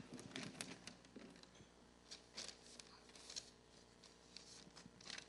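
Faint rustling and handling of paper sheets at a lectern, with a few small clicks, over quiet room tone with a faint steady hum.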